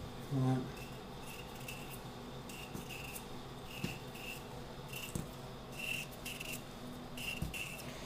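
Paring knife peeling a raw potato held in the hand: short scraping strokes of the blade under the skin, about one or two a second. A brief low vocal hum comes about half a second in.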